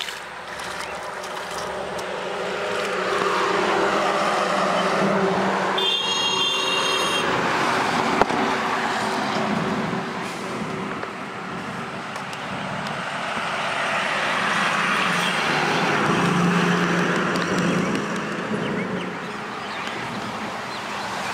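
Road traffic passing close by, the vehicle noise swelling and fading twice. A short high-pitched horn toots about six seconds in, and a sharp click follows just after.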